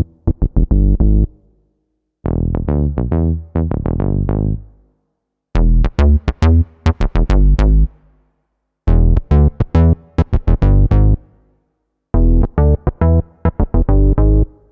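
Roland FA-06/FA-08 workstation synth bass patches played as about five short, quick-note bass riffs, separated by brief silences.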